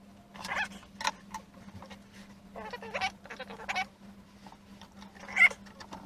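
Domestic waterfowl calling in a string of short calls, the loudest about five and a half seconds in, over a faint steady hum.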